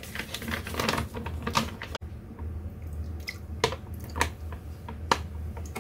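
Plastic pouch of canned abalone in sauce rustling as it is handled and squeezed, then the thick sauce pouring out into a glass bowl with scattered drips and plops.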